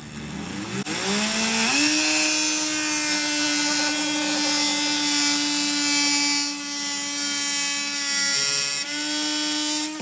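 Ridgid 4-amp corded oscillating multi-tool cutting across a clamped wooden block: a steady buzzing hum that climbs in pitch during the first couple of seconds as the tool comes up to speed, with the blade rasping through the wood. It stops at the end.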